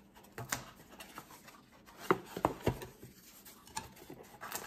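Small plastic accessories and their packaging being handled: scattered light clicks, taps and rustling, with a few sharper clicks about two seconds in.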